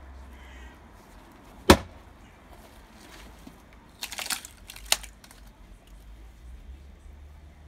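Splitting axe on its new handle striking a log once, a single sharp crack about two seconds in. A few seconds later, wood knocks and clatters as split pieces and a fresh log are handled on the chopping block, ending in one sharp knock.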